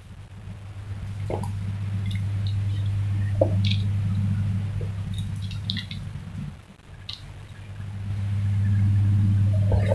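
A steady low hum that swells, dips about two-thirds of the way through and swells again, with a few sharp snaps as water spinach (kangkung) stems are broken off by hand.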